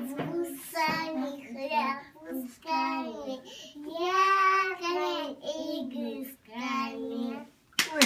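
Two little girls singing a children's song together in high voices, in short held phrases with brief pauses between them.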